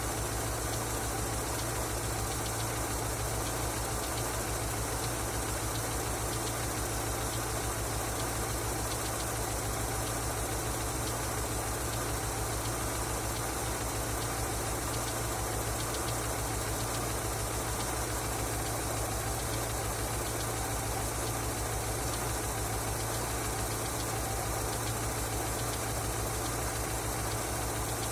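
Car engine idling steadily with a fast, regular knocking, a knock that appeared after an oil change.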